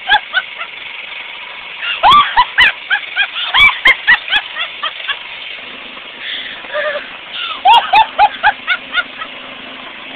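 A person laughing hard in high-pitched cackling bursts, in two long fits, over the steady running of a rear-tine rototiller's engine.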